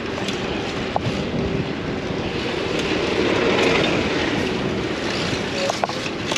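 Steady rush of city street traffic and riding wind, heard from a bicycle moving between cars, with a few light clicks.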